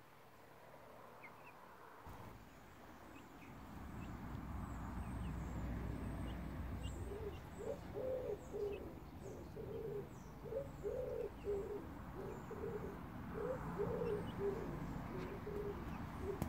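Wood pigeon cooing in repeated low phrases of several notes, starting about halfway through. Faint high chirps of small birds sound over a low background rumble.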